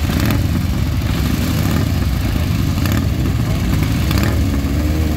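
Motorcycle engines running with a steady low rumble.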